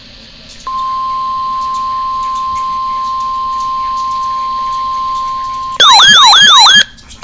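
Weather radio sounding the NOAA 1050 Hz warning alarm tone, one steady pure tone starting about a second in. Near the end a much louder siren-like sound takes over for about a second, its pitch sweeping up and down about four times, before the steady tone comes back.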